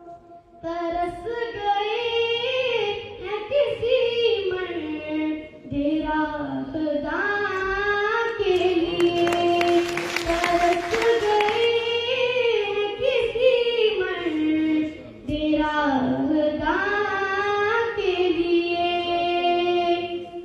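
A young woman singing a naat (Urdu devotional verse) unaccompanied into a microphone, amplified over a loudspeaker, in long ornamented phrases with brief pauses between them. A burst of noise rises under the voice about nine seconds in and dies away by about twelve seconds.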